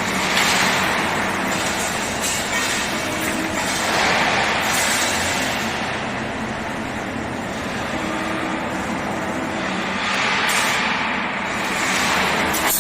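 Automatic wire mesh panel welding machine running: steady industrial clatter and hum that swells and eases every few seconds as the machine works through its cycle.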